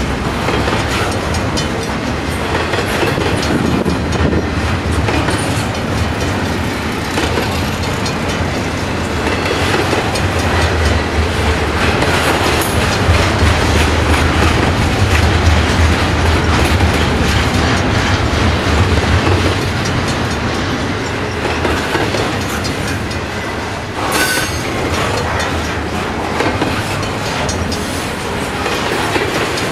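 Steel wheels of double-stack container well cars rolling past on a CN intermodal train, a steady rumble and rattle with clicking over the rails. A deep low rumble swells through the middle, and one short high metallic squeal comes late on.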